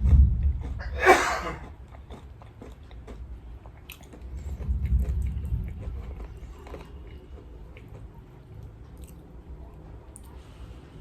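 Close-up chewing and biting of crispy fried chicken, with small crunches, and a short loud burst of breath about a second in.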